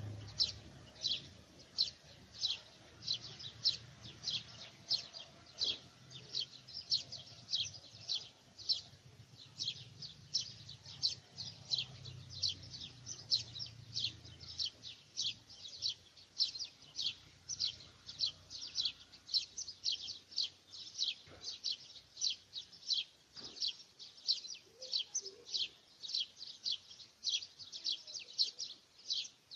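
A small bird chirping over and over, short high chirps repeating evenly at about two or three a second.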